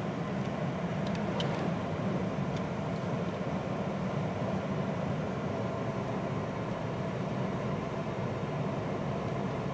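Steady road and engine noise of a vehicle driving at an even speed, heard from inside the cabin.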